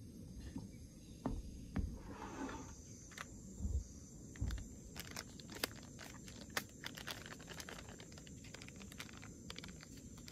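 Handling noises at a camp table: a few dull knocks as a Jetboil cup and a steel tumbler are set down, then many small crackles from a paper instant-coffee sachet being handled.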